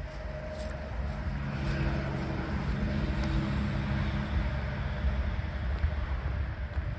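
A motor vehicle running close by, with a steady low engine hum that grows louder about a second and a half in.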